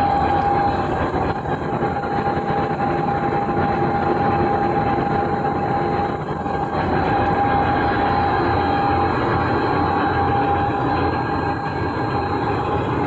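Puffed corn snack food extruder running: a loud, steady mechanical drone with a constant high whine held throughout.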